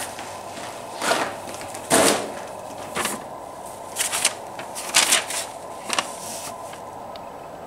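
Sheets of paper rustling and crinkling as gloved hands pick them up and handle them: a series of short rustles about one a second, over a steady background hum.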